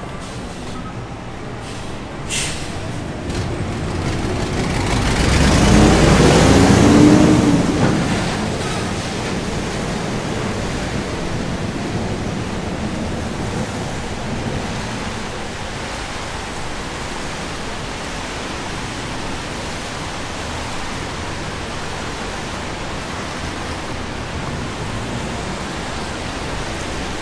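Steady hiss of rain on a city street. A vehicle passes close on the wet road about five to eight seconds in, rising and then falling away with tyre hiss and engine sound.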